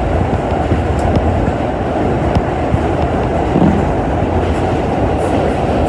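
Subway train running through a tunnel, heard from inside the car: a loud, steady rumble with a few sharp clicks.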